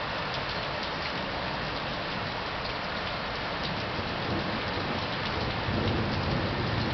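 Heavy rain pouring during a thunderstorm, a dense steady hiss with scattered drop patters. A low rumble swells near the end.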